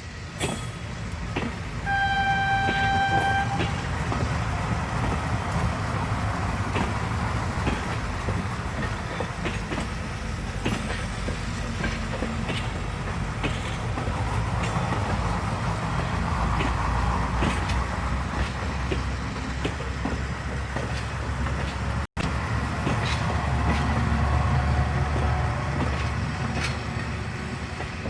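Centy battery-powered toy passenger train running on its plastic track: a steady motor rumble with the small clicks of the wheels and coaches. About two seconds in, the toy sounds a horn, one held tone lasting about a second and a half.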